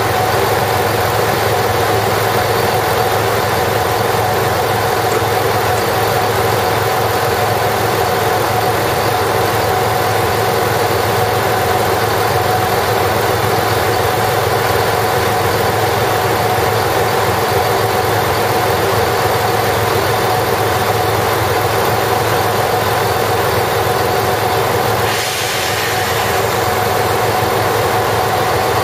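Chizu Express HOT7000 diesel railcar's engines idling steadily beside the platform. About 25 seconds in, a hiss starts over the engine sound.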